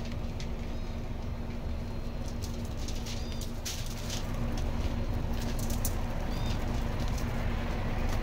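Handling noise of a smoked beef shank over aluminium foil: a run of short crinkles and taps through the middle, as foil is handled and marrow drips onto it. Under it runs a steady low hum and outdoor background, with a bird chirping now and then.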